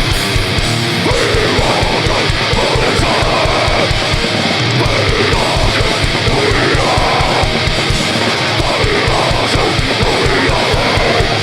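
Extreme metal band playing live and loud: distorted guitars, fast, even bass-drum beats and, from about a second in, shouted vocals.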